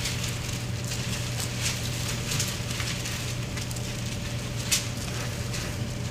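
Bible pages being leafed through close to a lectern microphone: a soft, crackling paper rustle with one sharper click about three-quarters of the way in, over a steady electrical hum.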